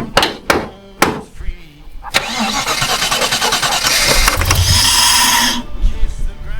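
Holden 304 V8 being cranked by the starter motor on a squirt of starting fluid: loud, fast cranking for about three and a half seconds that stops abruptly, after a few sharp knocks in the first second. The engine has sat for eight years and is suspected of a fuel pump problem.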